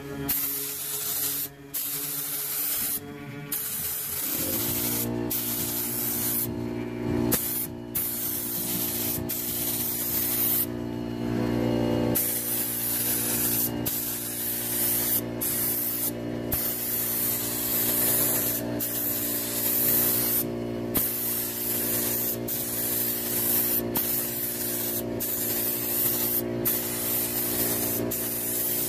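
Air-fed gravity-cup paint spray gun hissing as it lays the first coat of automotive paint on a car bumper, the hiss stopping briefly several times where the trigger is let off between strokes. A steady low hum runs under it from about four seconds in.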